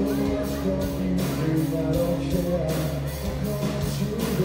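Live rock band playing: electric guitar and bass holding notes over a steady drum beat, with a male lead vocal.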